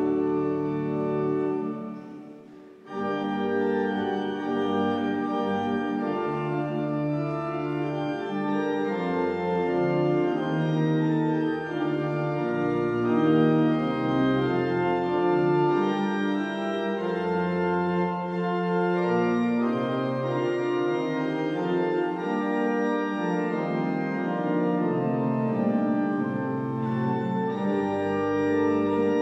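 Church organ music with sustained chords. A chord dies away in the church's reverberation about two seconds in, and the organ starts playing again a moment later.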